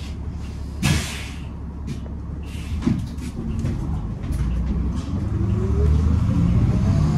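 Motor vehicle running with a low rumble, a short hiss about a second in, then a whine rising steadily in pitch as it speeds up and grows louder.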